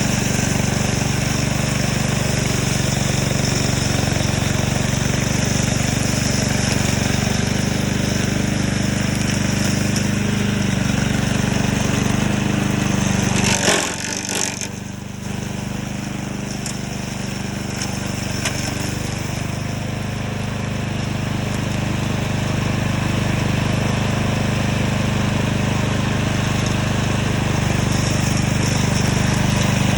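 Engine of a remote-control lawn mower running steadily. About halfway through there is a brief sharp noise, then the engine note drops and slowly climbs back up.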